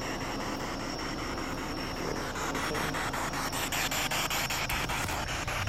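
SB7 spirit box sweeping through radio stations: a steady hiss of static chopped by rapid, evenly spaced clicks.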